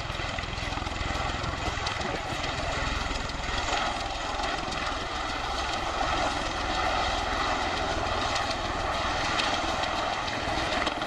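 MV-22 Osprey tiltrotor's proprotors and twin Rolls-Royce AE 1107C turboshaft engines running with a steady, heavy rotor noise that grows slightly louder.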